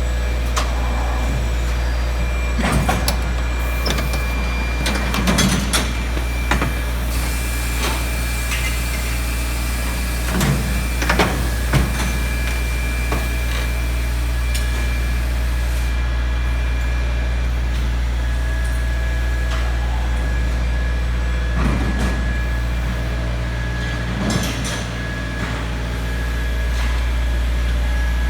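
Premier Tech VP-400 SE baler line machinery running with a steady low hum and a few faint steady whines, broken by irregular clanks and knocks.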